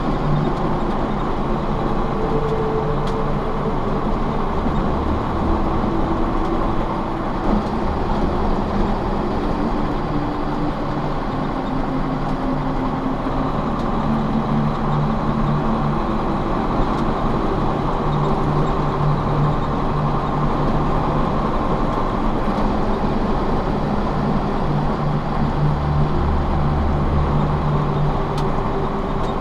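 Vehicle cruising at highway speed, heard from inside the cab: a steady engine drone with constant tyre and road noise.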